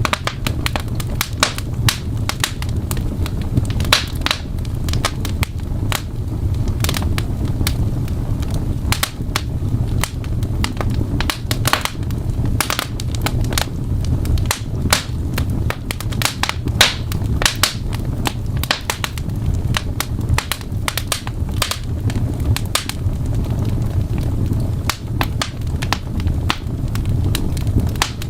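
Fireplace fire crackling and popping in dense, irregular snaps over a steady low rumble.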